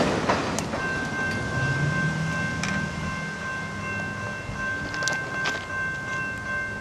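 Train approaching, its horn sounding one long steady chord from about a second in, with the low rumble of the train underneath.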